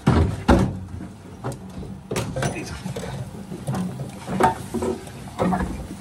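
Irregular knocks, clunks and scrapes of hands working the old gas boiler and its pipework loose under a kitchen cupboard, the sharpest knocks about half a second in.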